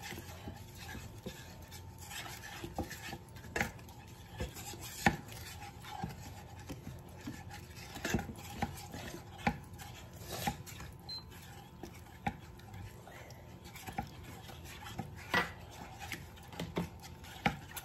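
Wooden spatula stirring a thick sauce in a stainless-steel frying pan, scraping along the pan with irregular light knocks against its sides and bottom.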